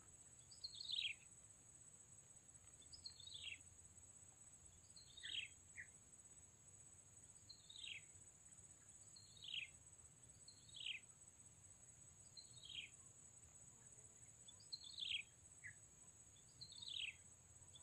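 A bird calling faintly, a short falling note repeated about every two seconds, nine times in all.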